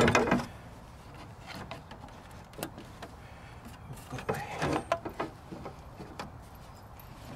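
A rubber radiator hose being twisted and pushed by hand onto its outlet spout, making scattered rubbing and clicking handling noises. There is a louder bump at the start and a busier stretch about four to five seconds in.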